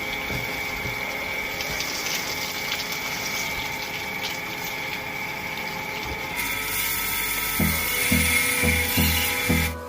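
Water running and gushing steadily with a steady high whine over it, turning brighter and hissier about six and a half seconds in. Music with a steady low beat comes in about seven and a half seconds in.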